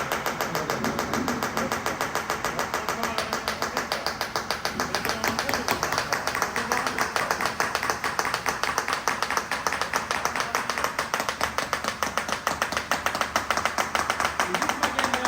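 Fast, even mechanical clicking or rattling from RC model construction machinery, running steadily throughout.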